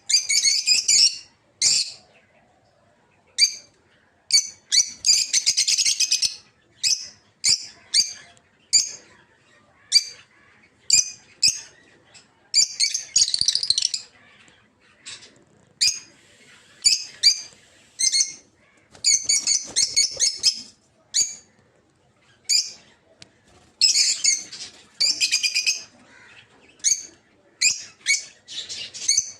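Peach-faced lovebirds chirping: many short, shrill, high chirps in quick succession, broken every few seconds by longer bursts of chattering screeches lasting about a second.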